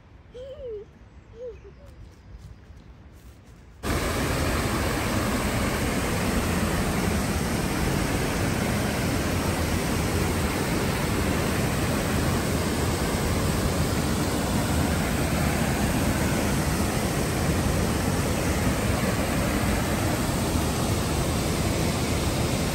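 Two short faint squeaks, then from about four seconds in a loud, steady rush of fast-flowing river water that runs on unchanged.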